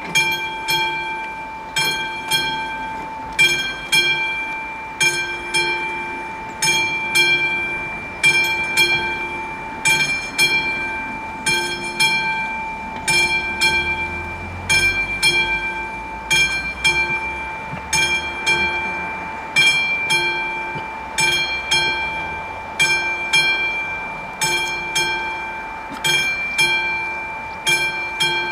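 Railway level-crossing warning bell struck over and over, roughly once a second, each strike ringing on into the next: the sign that the crossing is closed for an approaching train.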